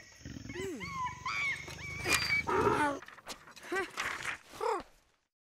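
Animal calls from a film soundtrack: a rough growl under gliding, squawking calls, then a run of short yelping calls before it falls quiet.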